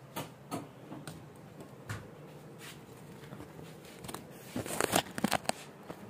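Short scratchy clicks and scrapes, scattered, with a quick run of them about five seconds in.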